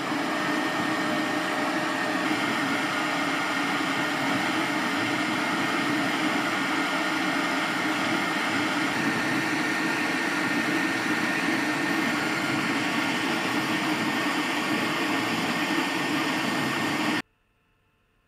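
Sovol Zero 3D printer running a fast print: a steady whir of fans and motion motors with a faint steady high whine, cutting off suddenly near the end.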